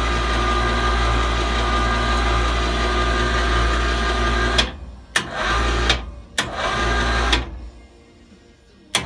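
Harbor Freight 400 lb electric hoist motor running steadily, winding the lift cables onto their drums to raise the storage platform. It stops about four and a half seconds in, then runs in two short bursts to inch the platform up level before stopping.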